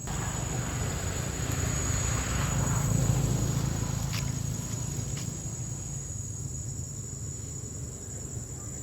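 Outdoor ambience: a steady high-pitched insect drone, like crickets, under a low rumble that swells about three seconds in and then fades. Two sharp clicks come about four and five seconds in.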